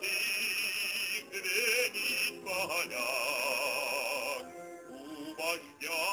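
Song about Stalin: voices singing long, wavering notes with accompaniment, in phrases separated by short breaks.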